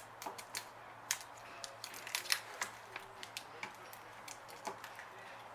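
Irregular light clicks and ticks of hands working vinyl tint film onto a small plastic light lens, over a faint steady low hum.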